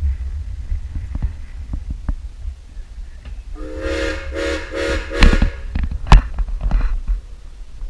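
Narrow-gauge steam locomotive whistle blowing about four short blasts a little past the middle, a chord of several pitches, over the low rumble of the moving train. Two loud sharp knocks follow just after the whistle.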